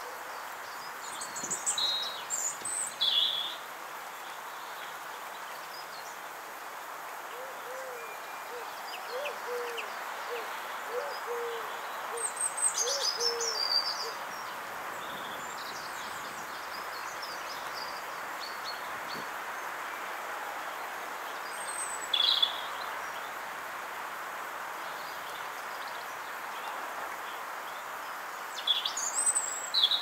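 Garden birdsong: small birds give short, high chirping phrases several times. In the middle, a pigeon coos a run of low notes. A steady background hiss runs under them.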